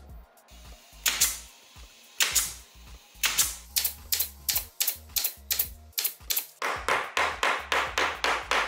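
A series of sharp, noisy strikes: two single ones, then a steady run of about three a second.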